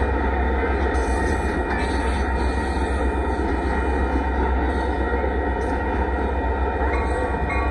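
Amtrak Texas Eagle passenger cars rolling past over a grade crossing at speed: a loud, steady rumble and rush of wheels on rail. The crossing's warning bell rings over it.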